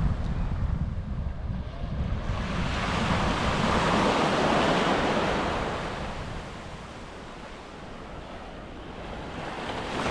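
Atlantic surf on a beach: a wave swells about two seconds in, breaks and washes out, dying away by about seven seconds, and another starts to rise near the end. Wind buffets the microphone with a low rumble, most in the first two seconds.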